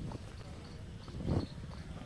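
Faint outdoor background noise with one short, soft thud a little past halfway.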